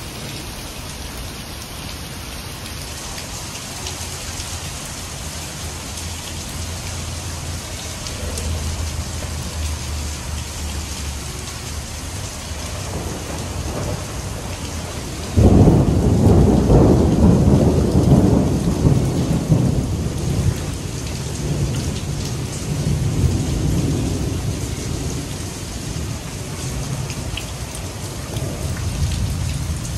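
Heavy rain pouring steadily, with low thunder rumbling in the first half. About fifteen seconds in, a loud thunderclap breaks suddenly and rolls on for several seconds as it fades.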